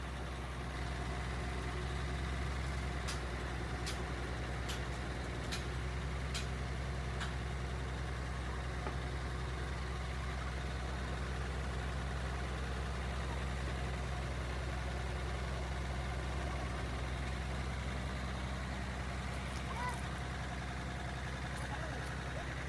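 An engine running steadily at idle, a constant low drone. Six short sharp taps come about a second apart a few seconds in.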